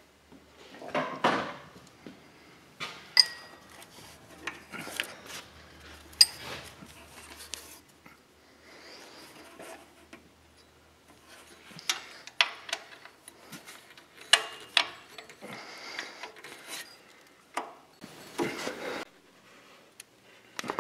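Hand-tool work in a car's engine bay: a steel socket and extension clinking and scraping against bolts and brackets as it is worked onto the serpentine belt tensioner's mounting bolt, with rubbing and rustling of hands and sleeves. The clinks come at uneven intervals, a couple of them sharp enough to ring briefly.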